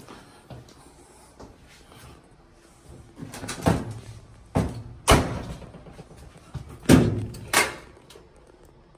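Doors and lids being opened and shut in a laundry room: a run of sharp knocks and bangs starting about three seconds in, the loudest about five and seven seconds in.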